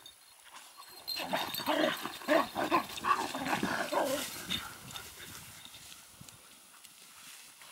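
Dogs calling to each other during rough play: a quick run of short yips and whines for about three seconds, then it goes quieter as the pack moves off.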